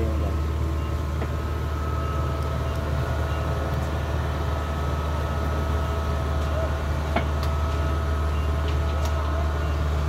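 Kubota DC70 combine harvester's diesel engine running steadily as the tracked machine drives slowly, a constant low hum.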